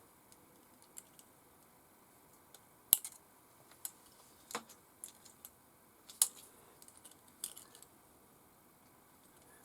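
Scattered light clicks and taps of hands working on an RC crawler's new electronic speed controller and its wiring, with two louder sharp clicks, about three seconds in and about six seconds in.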